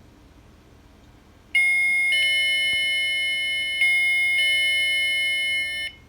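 Revex CS-500 wireless chime receiver sounding its electronic chime: a run of high electronic notes, ringing over one another, starting about a second and a half in and cutting off suddenly about four seconds later.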